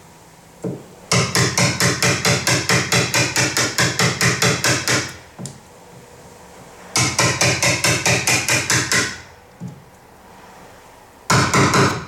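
Hammer striking a wood chisel in quick, even blows, about five a second, chopping a latch-plate rebate out of a timber door frame. There is a run of about four seconds, then another of about two seconds, and a short burst near the end.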